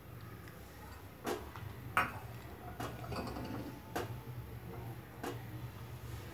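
Silicone spatula stirring a thick milk mixture in a nonstick kadhai, with about five light knocks and scrapes against the pan spaced roughly a second apart, the loudest about two seconds in.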